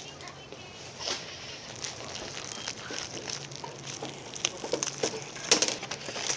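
Plastic shopping basket of packaged foods and cup noodles being carried and set on a table, with packaging crinkling and items clattering as they are lifted out. A louder knock comes about five and a half seconds in.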